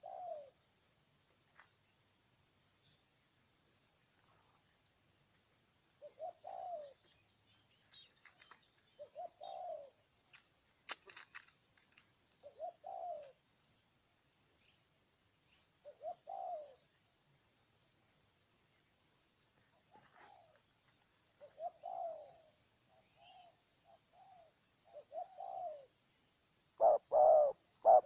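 Spotted dove cooing: short phrases every few seconds, coming louder and in quicker succession near the end. A faint, high, rising chirp repeats steadily underneath, about once a second.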